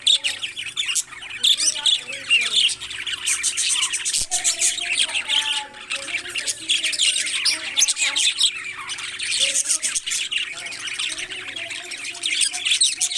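Many parrots chattering and squawking together: a dense, unbroken run of high chirps and harsh squawks.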